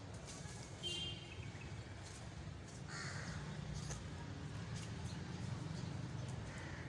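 Crows cawing a few times, scattered short calls over a steady low background rumble.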